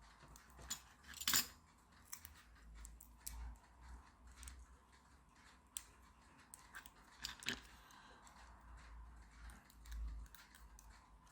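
Faint scattered clicks and scrapes of a blade cutting and picking at a thin plastic self-adhesive anti-theft tag label, with louder clicks about a second in and about seven and a half seconds in.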